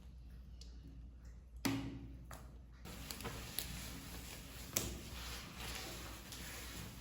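A few sharp knocks and clicks, like household objects being set down or handled, over a steady low background hiss. The loudest knock comes about a second and a half in, with a brief low ring after it.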